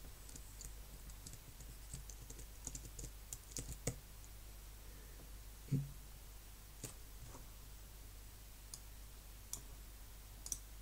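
Faint, scattered clicks of a computer mouse and keyboard while text in an editor is selected and scrolled, with a cluster of clicks a few seconds in and a steady low hum underneath.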